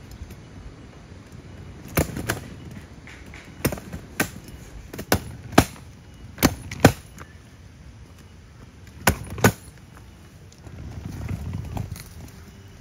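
A series of sharp knocks, mostly in pairs about half a second apart, with a soft low rumble rising briefly near the end.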